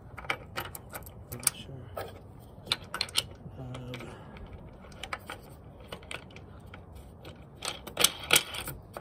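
Irregular clicks and taps of small metal and plastic parts being handled: a washer going onto a bolt and a plastic tightening knob being threaded on against the sharpener's plastic bracket. The loudest cluster of clicks comes about 8 seconds in.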